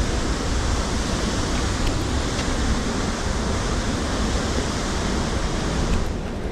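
Thornton Force waterfall: a steady rush of falling water with a deep rumble under it, its hiss easing slightly near the end.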